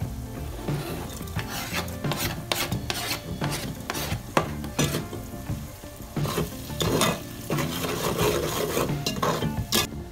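A metal spatula scraping and stirring in a steel pot while cumin seeds, browned onions and green chillies sizzle in hot oil, with many short scrapes.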